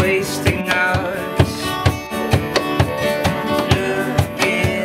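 A band playing a song live: a man singing over acoustic guitar, with a steady percussion beat of about three strokes a second.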